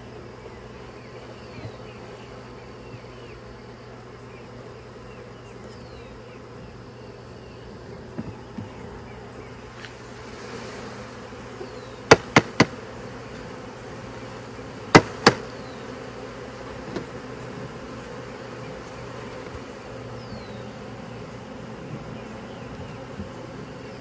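Honey bee swarm buzzing as a steady hum. About halfway through come three sharp wooden knocks close together, then two more a few seconds later, as frames are handled in the nuc box.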